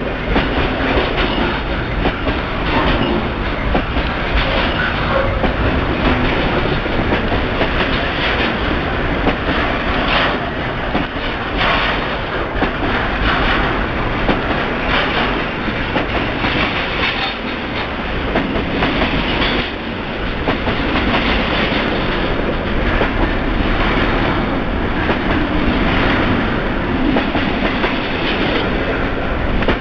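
Double-stack intermodal container train rolling past close by: a steady rumble of the loaded well cars, with the steel wheels clacking over rail joints every second or two.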